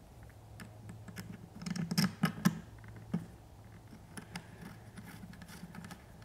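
Small clicks and light scrapes of a hex key and screw working against plastic dust-boot parts as a wing is fitted and screwed down, with a cluster of louder clicks about two seconds in, over a faint steady low hum.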